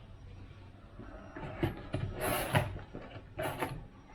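Handling noise from work on the motorcycle exhaust: a few short scrapes and knocks about a second and a half in, around two seconds in and again near three and a half seconds, over a low steady hum.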